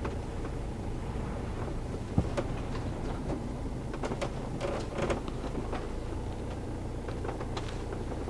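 Camper van's engine running steadily at low speed while manoeuvring, with scattered light clicks and rattles and one sharp knock about two seconds in.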